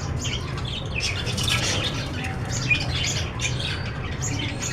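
Parrots squawking: a rapid run of short, harsh calls, several a second, with no pause.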